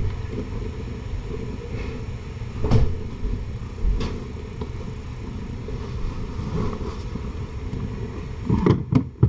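Mother cat purring steadily while nursing her kittens: a low, continuous rumble. A few soft knocks come through it, one about a third of the way in, another a second later, and several close together near the end.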